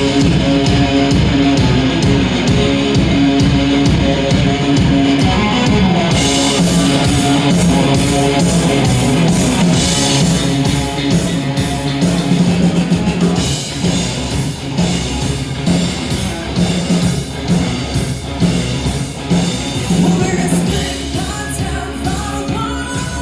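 Rock band playing live through a PA: electric guitars, bass and drums, with sustained guitar notes over a steady beat.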